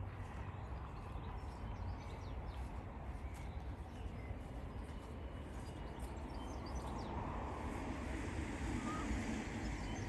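Outdoor park ambience: faint bird calls and the walker's footsteps over a steady low rumble.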